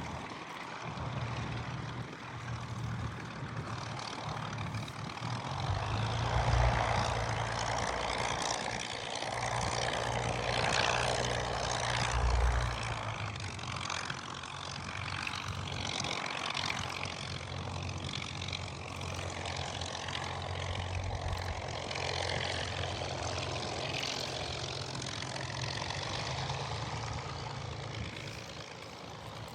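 Spitfire's Rolls-Royce Merlin V12 piston engine and propeller running, a steady drone that swells louder between about six and thirteen seconds in, then carries on steadier and a little quieter.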